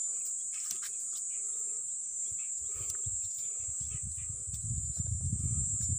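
Insects shrilling steadily in a high, even drone, with scattered small clicks of twigs and leaves being handled. From about three and a half seconds in, a low rumble rises under it.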